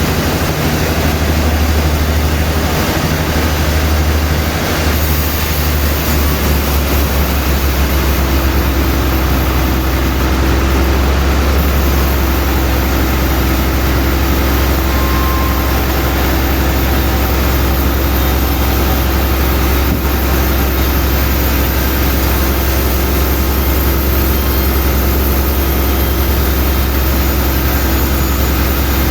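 Sawmill machinery running steadily with a loud low hum; a higher steady tone joins about eight seconds in.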